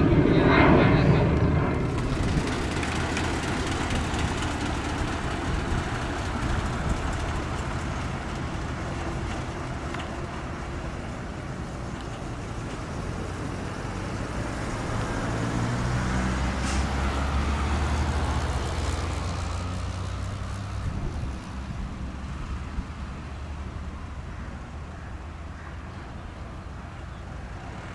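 Airbus A320-family airliner jet engines: loud at the start as one climbs away after takeoff, dropping to a steady distant rumble that swells with a deeper rumble around two-thirds of the way through, then eases off.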